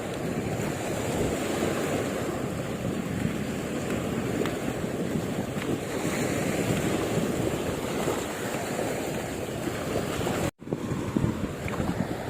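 Wind buffeting the microphone over the steady wash of sea waves, with a momentary cut-out about ten and a half seconds in.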